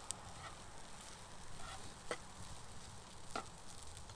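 Food sizzling in a pot on a camp stove while it is stirred, the spatula scraping and clicking against the pot a few times.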